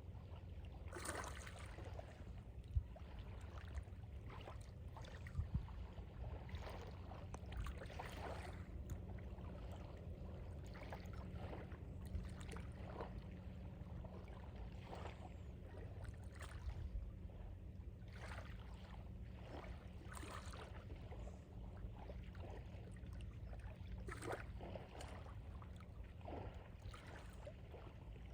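Small, calm sea waves lapping at the water's edge in short, irregular splashes, over a steady low rumble.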